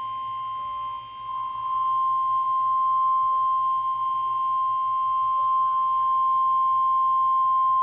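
Emergency alert attention tone: a single steady, pure tone just above 1 kHz, the 1050 Hz National Weather Service warning alarm that comes before a spoken severe thunderstorm warning.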